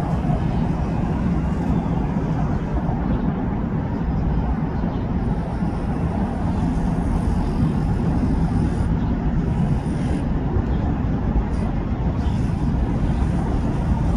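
Steady low rumble of city engine and traffic noise, even throughout with no distinct events.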